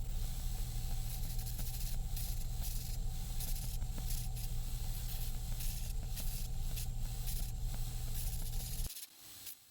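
Belt grinder running with a wooden knife handle pressed against the slack part of its abrasive belt: a steady motor hum under a rough sanding hiss. The sound cuts off abruptly near the end.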